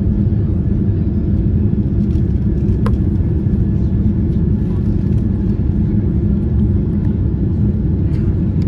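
Steady low roar inside the cabin of a Boeing 777-300ER airliner climbing after takeoff: jet engines at climb power and rushing airflow, with a single faint click about three seconds in.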